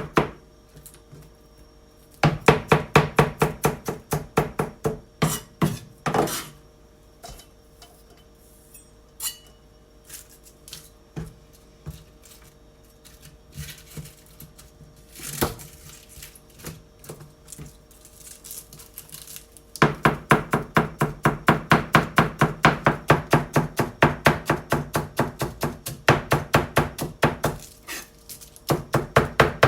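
Kitchen knife finely shredding cabbage on a cutting board: runs of quick, even chopping strokes, about three a second, with a quieter stretch of scattered knocks and handling in the middle.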